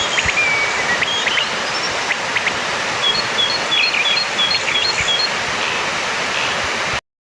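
Orange-headed thrush singing thin whistled phrases over a steady loud hiss. About three seconds in comes a quick run of short paired notes, and everything cuts off suddenly near the end.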